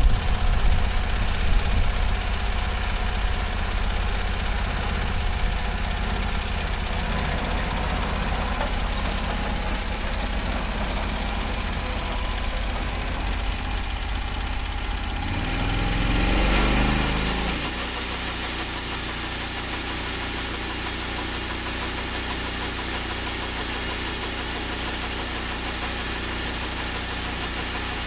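Engine of a Norwood HD38 portable bandsaw mill idling, then revving up in a rising sweep about 16 seconds in and running steady at high speed, with a loud steady hiss from then on.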